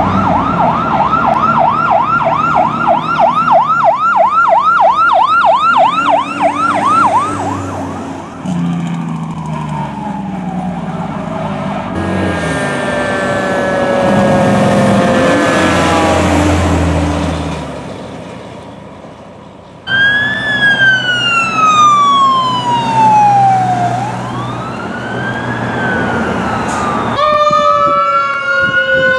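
Fire truck sirens from several responding trucks in turn: first a fast electronic yelp for about seven seconds, then slower falling siren tones with steady horn blasts and a deep rumble underneath. About 20 seconds in, a slow electronic wail sweeps down and back up, and near the end another wail joins with more sirens.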